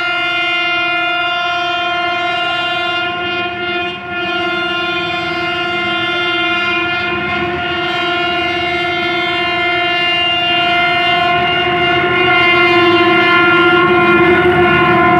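Diesel locomotive horn on a Pakistan Railways PHA-20 sounding one long unbroken blast as the train approaches at full throttle. It grows louder near the end.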